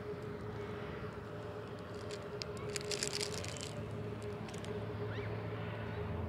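Steady outdoor background hum with a constant mid-pitched tone, and a brief cluster of crackling about two and a half seconds in.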